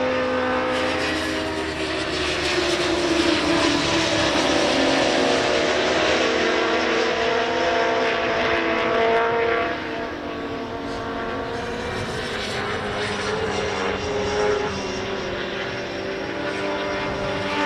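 Several racing motorcycle engines at high revs going past, their pitch sliding up and down. The level drops about ten seconds in, then builds again as more bikes come through.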